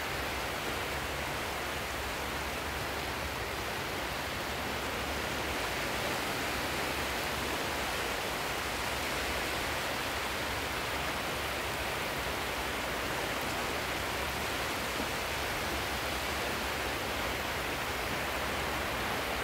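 A steady, even rushing noise with a low rumble beneath it, holding the same level throughout with no swells or breaks.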